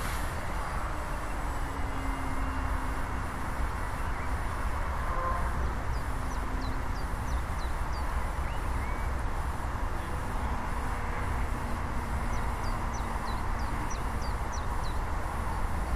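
Steady outdoor rumble and hiss, heaviest in the low end, with two brief runs of short high chirps, about six seconds in and again about twelve seconds in.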